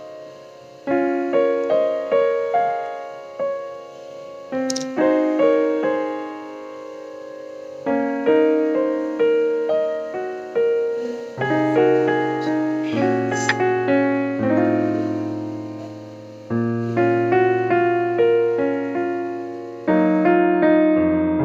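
Piano music: a melody of struck notes that ring and fade, with low bass notes joining about halfway through.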